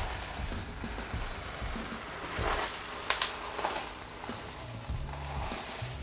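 Removable self-adhesive wallpaper being peeled off a wall: a papery ripping and crackling as the sheet pulls away, loudest in a few sharp tears around the middle.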